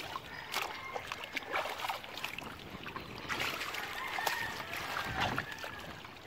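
Shallow seawater splashing and trickling as a dog is washed in it, with uneven, irregular splashes.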